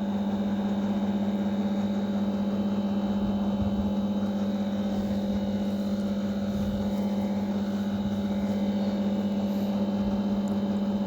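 Steady low mechanical hum, unchanging throughout, with fainter steady higher tones over it.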